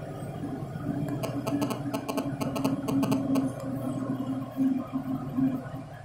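Diesel engine of a JCB backhoe loader working, a steady hum that swells and pulses as it works, with a spell of rapid rattling about a second in that lasts a couple of seconds.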